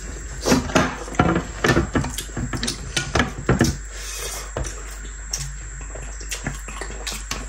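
Close-up mouth sounds of eating rice with kinema (fermented soybeans) by hand: wet chewing and smacking clicks, busiest in the first half, then sparser while water is drunk from a plastic bottle.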